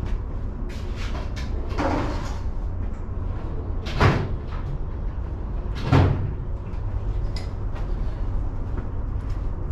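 Two sharp knocks about two seconds apart, with a softer clatter before them, from tools or a cabinet being handled in a garage. A steady low rumble of wind on the microphone runs underneath.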